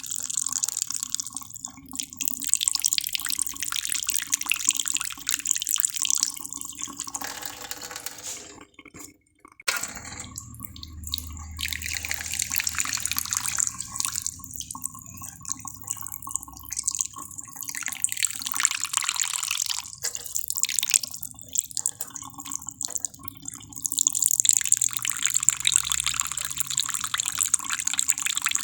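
Water running from a tap and splashing, with a brief break about nine seconds in.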